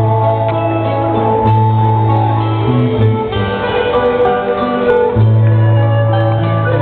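Instrumental music, with plucked strings playing over long, held bass notes.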